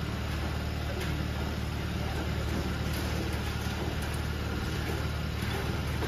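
Motorcycle engine idling steadily, with no revving.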